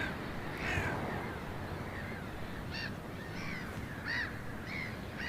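Birds calling at a carcass: a run of short, harsh calls, about one every half second to second, over a steady low background rumble.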